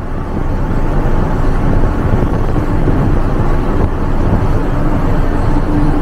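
Steady loud rumbling on the open deck of the passenger ship KM Dorolonda under way: engine and sea noise mixed with wind on the microphone, with a faint steady hum.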